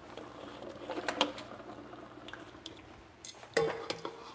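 Kitchen clatter of a metal ladle and a plastic bowl knocking against stockpots as cooked beef tripe and feet are moved from pot to pot, with a few scattered clinks and soft pats.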